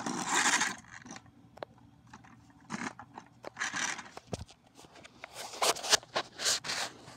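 Close handling noise: scraping and rustling with sharp clicks. A long scrape comes at the start, and a run of quicker scrapes and clicks comes near the end.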